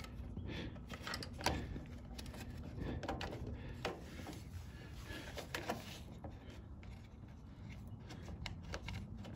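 Faint scattered clicks and light knocks of plastic and rubber parts being handled as a hose is worked onto a fitting behind a small engine's plastic air-cleaner base, over a low steady background rumble.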